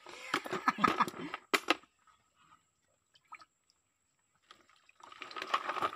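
Hands working through shallow stream water among stones, splashing and sloshing. This comes in two spells, with a quiet stretch of a couple of seconds in the middle.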